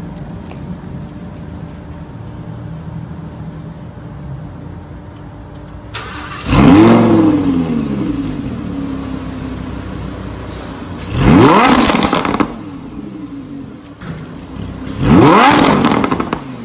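Lamborghini Huracán's 5.2-litre V10 on its stock factory exhaust, idling steadily, then blipped three times: each rev rises sharply and falls back to idle, the first about six seconds in, the others about five and nine seconds later.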